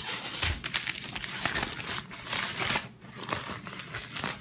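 Crinkling and crumpling of something rustly being handled: an uneven run of crackles that stops near the end.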